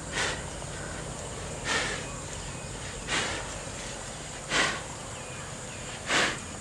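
A carabao pulling a plow breathes out hard through its nose, five loud breaths about every second and a half, over a steady high insect drone.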